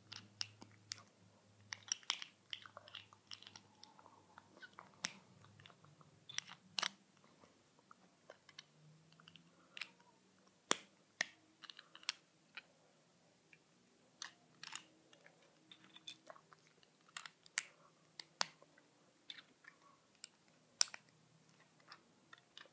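Plastic Lego bricks being handled and pressed together: irregular sharp clicks and light rattles of plastic on plastic.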